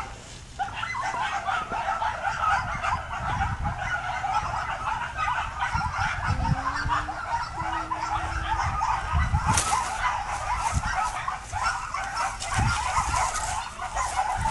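Dense, steady chatter of many birds, starting about half a second in, with a few short low calls in the middle and low thumps on the microphone.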